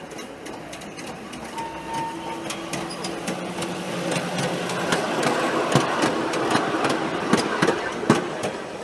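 A ride-on miniature railway locomotive approaches and passes close by, its motor running steadily. Its wheels click over the track, the clicks growing louder and more frequent over the last few seconds as the train draws level.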